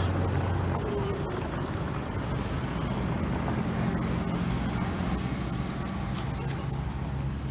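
An engine running steadily: a low, continuous hum with a noisy wash over it.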